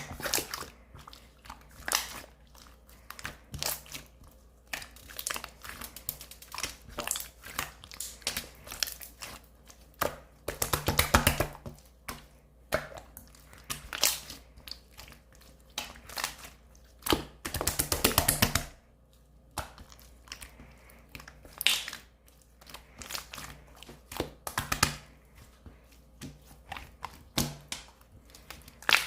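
Clear slime being squished and pressed by hand, giving a steady series of sticky clicks and air-bubble pops, with two stretches of rapid, dense crackling about ten seconds in and again around seventeen seconds.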